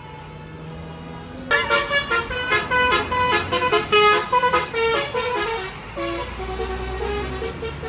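Tour bus's telolet (basuri) horn playing a quick melodic run of notes, starting suddenly about a second and a half in and loudest for the next few seconds, then going on more softly over a low rumble.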